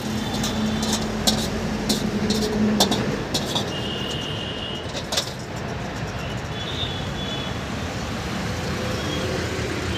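Steady road traffic noise, with a few sharp clicks and knocks in the first few seconds.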